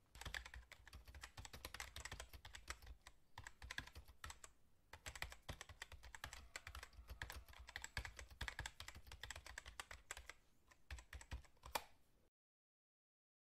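Computer keyboard typing: a quick, irregular stream of key clicks, keeping pace with text appearing letter by letter, that stops abruptly about a second before the end.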